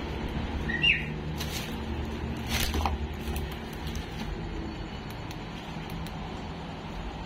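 Low steady background rumble with footsteps scuffing on a concrete floor, and a single short bird chirp about a second in.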